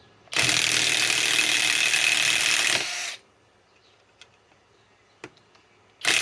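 Cordless impact wrench hammering as it backs out a lag screw: one continuous run of about three seconds. Then a pause with a few light clicks, and a short burst of hammering starts again near the end.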